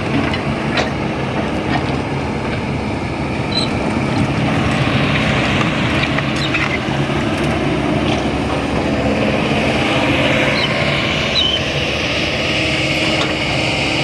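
Kobelco excavator's diesel engine running steadily under working load, with scattered sharp metallic clanks.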